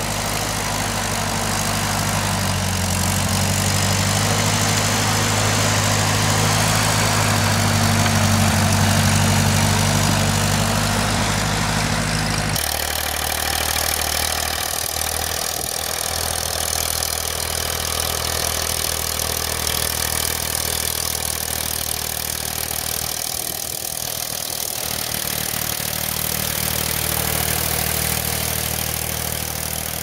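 Old farm tractors on half-tracks driving through deep snow. First one tractor engine runs steadily under load, with a strong low drone. About twelve and a half seconds in, the sound switches abruptly to a second tractor's engine, thinner and with more hiss, as it pushes a snow plow.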